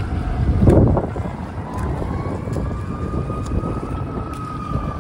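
Wind buffeting the microphone over the low, steady rumble of a boat under way, with a strong gust just under a second in. A siren wails in the distance, one long tone rising slowly and falling again over the last three seconds.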